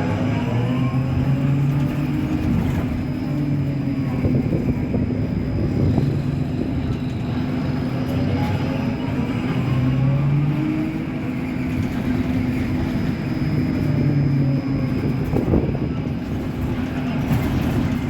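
Caio Millennium BRT trolleybus (Scania K270UB) running, with a steady low hum. Its motor whine rises in pitch as it speeds up, once right at the start, again in the middle and again near the end, against a background of rattles and knocks from the bus body.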